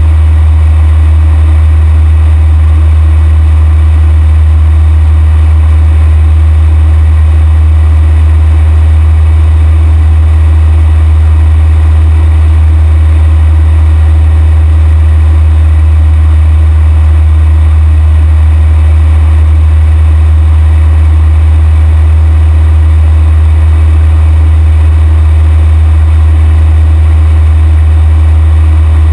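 Cessna 172's piston engine and propeller droning steadily in flight, heard loud from inside the cockpit.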